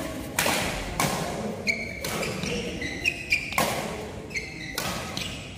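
Badminton rally: rackets striking the shuttlecock several times at uneven spacing, with short high squeaks of shoes on the court floor between the hits.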